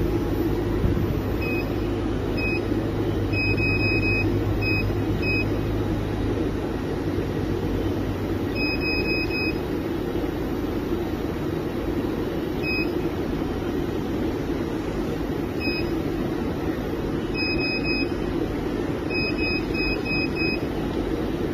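Automatic lithium battery pack spot welding machine running with a steady hum and whir. Short high beeps come singly and in quick runs of two to five, scattered irregularly.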